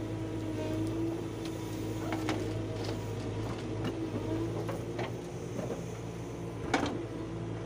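Backhoe loader's diesel engine running steadily as it digs soil and loads a tipper truck, with a few sharp clanks from the working bucket and boom, the loudest near the end.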